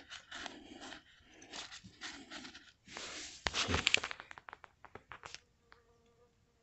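Scraping and crunching handling noises close to the microphone, ending in a quick run of light clicks about five seconds in, then a faint steady tone.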